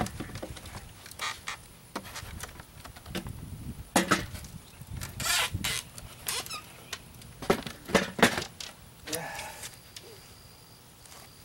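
Plywood boards joined by a stainless steel hinge being handled, turned over and set down on sawhorses: a series of wooden knocks and clacks with the metal hinge clinking, the loudest about four seconds in and twice near eight seconds.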